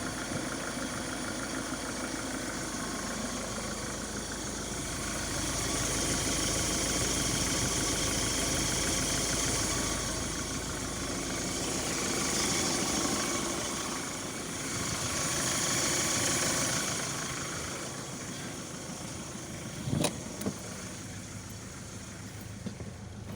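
Car engine idling with a high whistling noise that swells and fades several times, and a couple of sharp knocks near the end. The owner ruled out the alternator bearing and takes the whistle to be most likely a worn water pump bearing.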